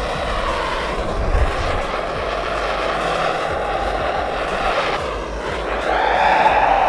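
Handheld gas torch flame hissing steadily as it is held into the hole of a rocket log stove to light the leaves and embers inside. It dips briefly about five seconds in, then comes back louder.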